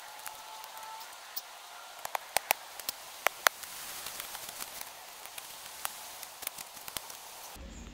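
Shovel digging in rooty woodland soil: scattered sharp clicks and ticks, several in quick succession around the middle, over a steady light hiss.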